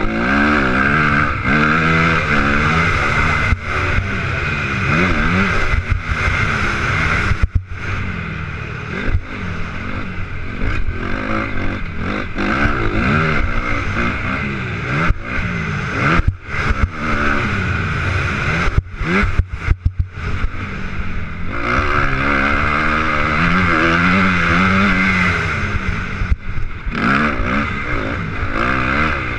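Motocross bike engine heard from the rider's helmet, revving up and down as it accelerates along the straights and shuts off into corners, with the pitch rising and falling repeatedly and several short, sudden drops.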